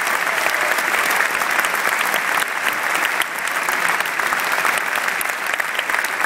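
A large arena crowd applauding steadily, a dense patter of handclaps, as a snooker player is introduced to the table.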